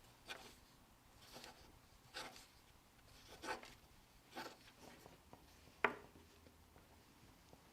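Faint short scratching and rustling sounds, about one a second, with a sharp click about six seconds in.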